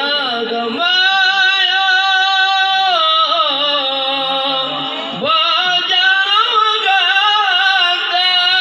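A man singing solo in Acehnese, holding long notes with a wavering, ornamented pitch. A new phrase starts about five seconds in.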